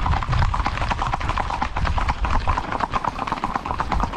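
Horses' hooves in a fast, dense clip-clop, the hoof beats coming many times a second without a break.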